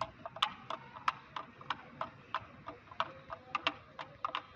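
Plastic spoon stirring a drink in a glass jug, clicking against the glass sides about three times a second.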